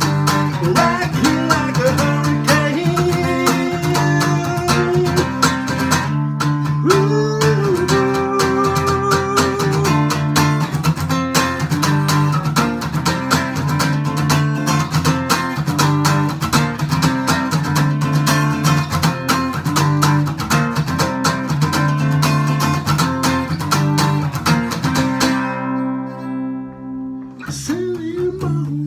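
Acoustic guitar, tuned down a whole step, strumming the song's chords in a steady rhythm under a sustained melody line with bent notes. Near the end a chord is left to ring out and fade before the strumming starts again.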